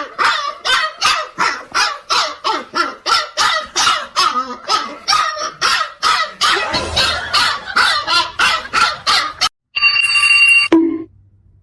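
A dog barking over and over, about three barks a second, for nearly ten seconds. About ten seconds in, a brief steady high beep-like tone sounds.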